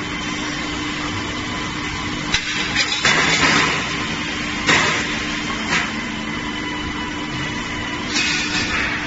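Steel drum band production-line machinery running with a steady hum. Sharp metallic knocks come about two and a half and five seconds in, and short bursts of rushing noise around three seconds in and near the end.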